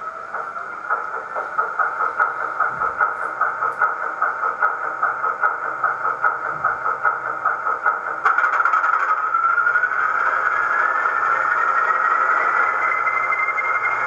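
Loksound XL v4.0 sound decoder playing a Class 40 diesel's English Electric 16-cylinder engine through the O gauge model's speaker: it idles with an even beat of about four pulses a second. About eight seconds in, the sound changes suddenly and a whine rises steadily in pitch, the turbocharger whistle of the Class 40 as the engine comes up.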